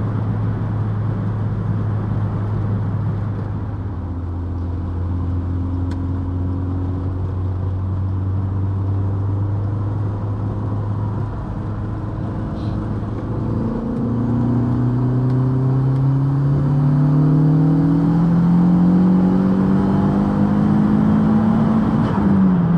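Mk2 Golf's big-turbo 1.8T 20-valve four-cylinder heard from inside the cabin, running steadily at part throttle. About 14 seconds in it pulls hard, its note rising steadily for about eight seconds, then drops sharply near the end as the run cuts out at about 6,600 rpm, short of its 7,100 rpm rev limit, a fault the owner cannot explain.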